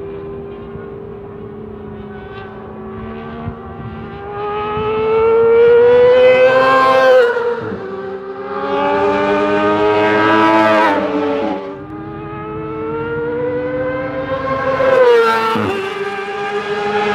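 Racing motorcycle engine at high revs, its pitch climbing through the gears three times, each climb ending in a sudden drop at the shift, over a steadier engine tone.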